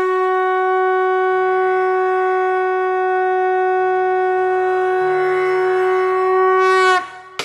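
A conch shell (shankh) blown in one long, steady note of about seven seconds, its pitch lifting slightly just before it cuts off.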